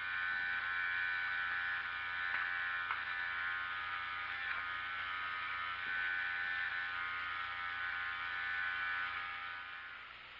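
Small electric gear motor of an automatic cat feeder running on test leads, its gear train whining steadily as a freshly cut brass gear drives a plastic cog. The whine stops near the end.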